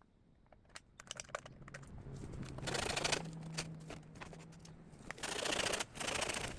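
Rustling and crackling of dry leaves and brush, coming in two long swells after a brief quiet start, with scattered clicks of twigs.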